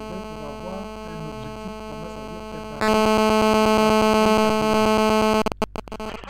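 Electronic buzzing hum with faint garbled voices under it. About three seconds in it jumps to a much louder, harsh pulsing buzz, then cuts off and breaks into crackle near the end.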